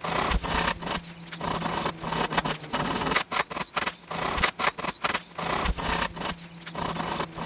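A hand file rasping across the steel teeth of an old Japanese maebiki saw in a quick run of short strokes, sharpening the teeth. A low steady hum lies underneath.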